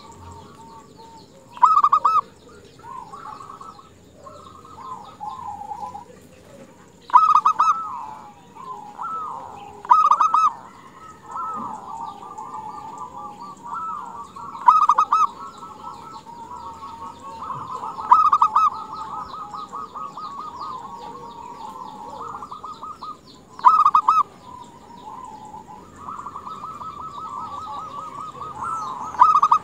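Female zebra dove (perkutut) calling: about seven loud short bursts of rapid cooing notes, a few seconds apart, with softer rapid notes carrying on between the bursts.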